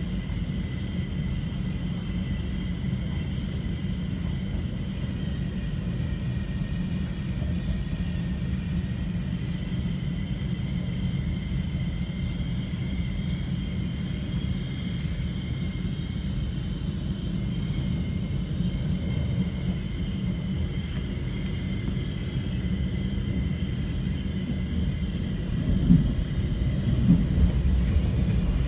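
Cabin of a moving NS Sprinter Light Train electric multiple unit: a steady low rumble of the running train with a faint steady high whine over it. A few louder knocks come near the end.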